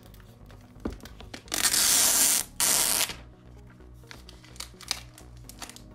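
Clear plastic protective sleeve being pulled off a new iPad: two long ripping, rustling strokes about a second and a half in, with a few light clicks of handling around them. Background music with a steady beat plays underneath.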